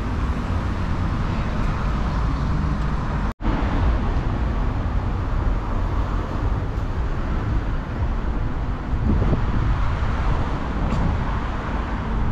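Steady road traffic noise from cars driving past on a multi-lane street. The sound briefly cuts out about three seconds in.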